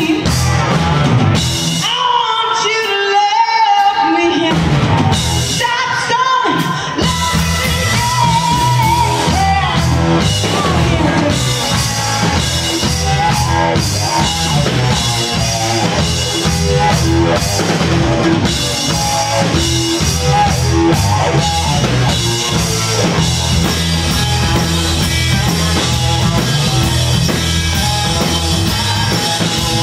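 Live rock band playing: a woman sings over electric guitars and a drum kit. For the first several seconds the band plays in short stop-start hits under the voice, then about seven seconds in the full band comes in and plays on steadily.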